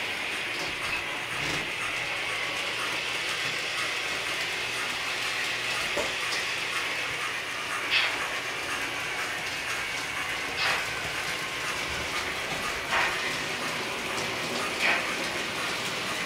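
TT-scale model trains running on a layout: a steady mechanical whirring hiss, with a sharp click every two to three seconds in the second half.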